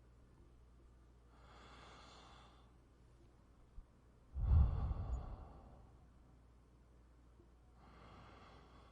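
Slow breathing, three breaths in all: a soft one about a second and a half in, a much louder, deeper one about halfway through, and another soft one near the end.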